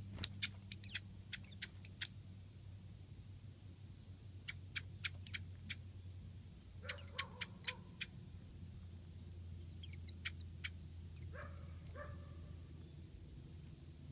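Japanese bush warbler giving its sharp, clicking winter 'chat' call notes in quick groups of several, with a few thin high calls of Japanese white-eyes. A low steady hum runs underneath.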